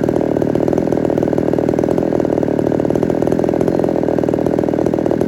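Ported Homelite Super XL-130 two-stroke chainsaw running steadily at an even speed.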